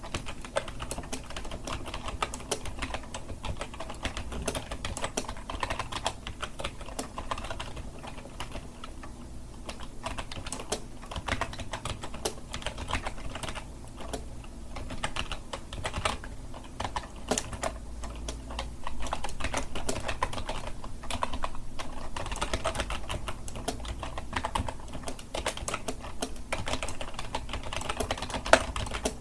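Continuous, fast, irregular typing on a computer keyboard, keys clacking steadily with no pauses, a little louder in the second half and with one sharper hard key strike near the end.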